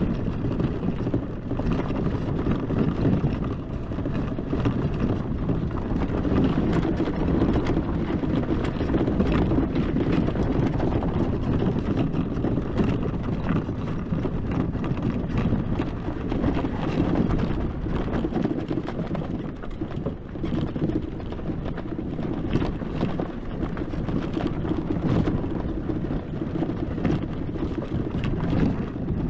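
Wind buffeting the microphone on a moving Hecht 59399 electric ATV, with the steady rumble of the ride over rough ground and many small knocks and rattles from the quad.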